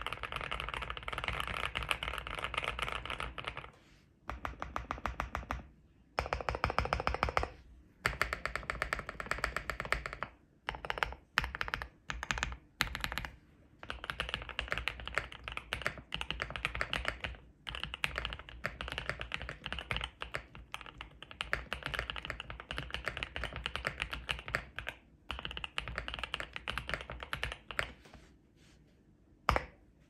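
Mechanical keyboard typing on a gasket-mounted QK65 with Durock Lupin switches and PE, PCB and case foam: fast runs of keystrokes broken by short pauses, with a few separate strokes in the middle. Near the end the typing stops and one sharp key click sounds.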